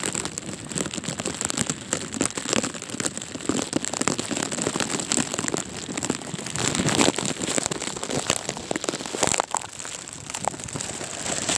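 Heavy rain coming down hard, a dense crackling patter of drops striking a surface, with one sharper hit about nine seconds in.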